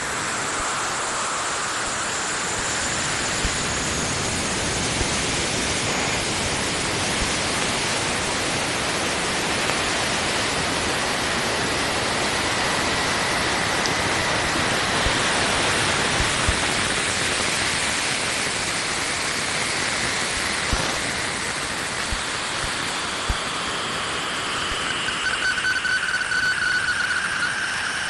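Saturn's radio emissions converted into sound: a steady hiss with faint whistling tones that glide slowly in pitch, a few scattered clicks, and a wavering tone near the end.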